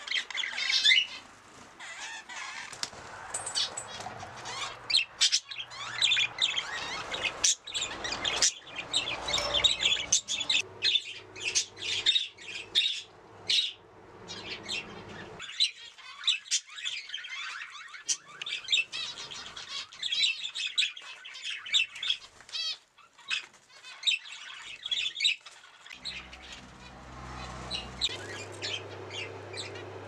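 A flock of budgerigars chattering and chirping, with many short high calls overlapping.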